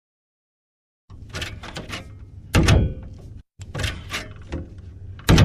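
Old car door being worked: latch clicks and rattling, a heavy slam about two and a half seconds in, more rattling, then a second slam near the end.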